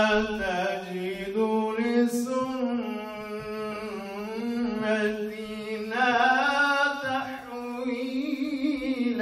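A man chanting melodically into a handheld microphone, holding long, ornamented notes that waver and slide in pitch, with only brief breaks for breath.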